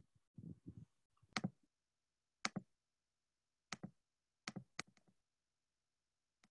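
A few soft thumps, then five or six faint, sharp clicks and taps at irregular intervals.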